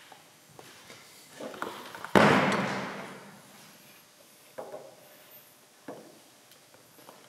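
A single loud bang about two seconds in that rings out over a second or so, followed by a few faint knocks and rustles.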